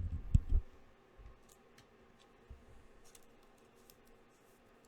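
A couple of low thumps, then faint scattered clicks and slides as trading cards are handled on a table.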